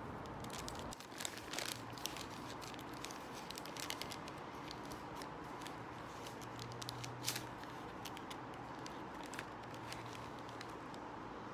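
Thin takeaway food bag crinkling and rustling as it is opened and handled, in many short crackles.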